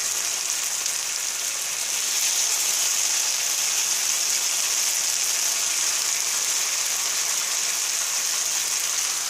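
BBQ-marinated pork fillet steaks frying in a pan of bubbling sauce and fat: a steady high sizzle.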